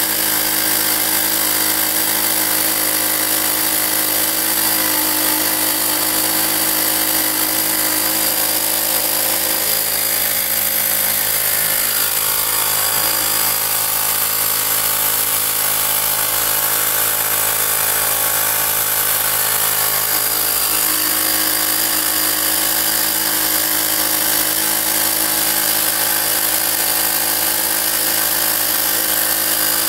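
12-volt 300 psi mini air compressor running steadily, its motor and pump giving a loud, even buzz while it inflates a balloon.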